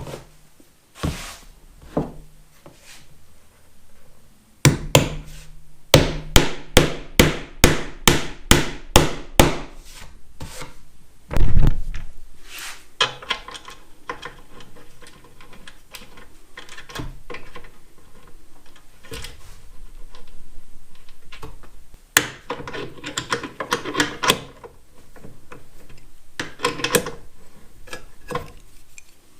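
Hammer knocking on wood: a run of sharp blows about two a second, then one heavy blow. Later come quicker bursts of tapping and rubbing on wood.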